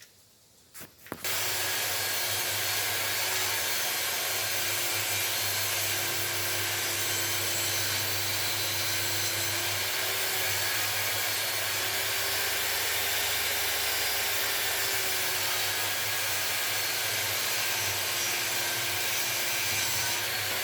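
Table saw starting about a second in and running steadily while a board is ripped, a loud even whir with a low hum.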